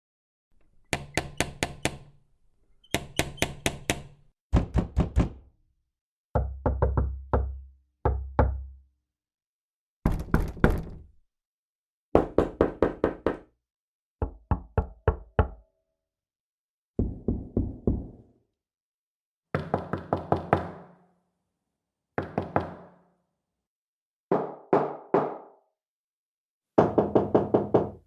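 Knuckles knocking on a window pane and on a wooden door, in about thirteen separate bouts of three to six quick raps each, with short pauses between bouts. Some bouts are deep and resonant, others brighter and thinner.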